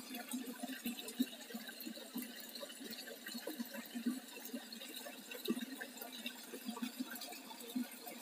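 Small stream of water spilling over a rock lip into a shallow pool, a steady splashing trickle.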